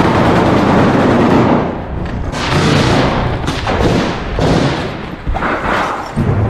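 Close gunfire in an urban firefight: heavy, continuous fire for about the first second and a half, then scattered separate shots and impacts.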